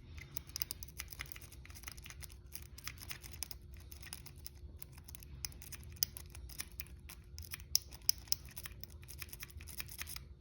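A metal rake pick scrubbing over the pins inside the keyway of a laminated steel padlock while a tensioner holds it: a dense run of faint metallic clicks and scratches, with a few sharper clicks later on.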